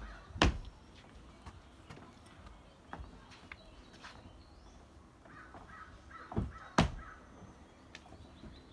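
A crow cawing in the background, with a few sharp knocks or smacks. The loudest knock comes shortly after the start, and two more come close together a little past the middle.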